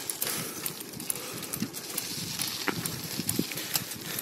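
Bicycle riding over a rough, potholed gravel road: tyres crunching on loose stones, with irregular rattles and knocks as the bike jolts over the broken surface.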